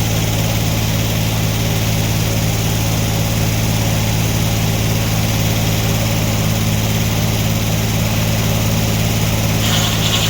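Sawmill engine running at a steady speed. Near the end, a higher cutting sound comes in as the saw starts into the wood.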